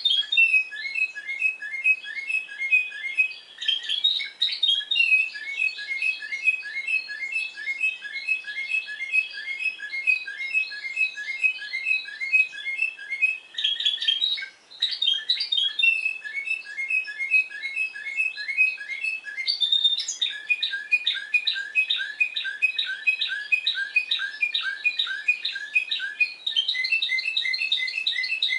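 Timbrado Español song canary singing in the discontinuous (descontínuo) style: long runs of rapidly repeated, clipped notes. The phrase changes every few seconds, with a brief break about halfway through.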